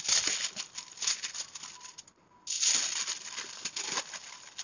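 Aluminium foil crinkling and crackling as hands fold and press it around a butter-paper parcel, with a brief pause about two seconds in.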